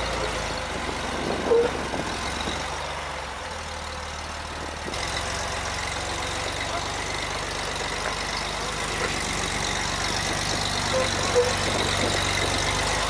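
An off-road vehicle's engine running steadily at low speed, with two brief high squeaks, one about a second and a half in and one near eleven seconds.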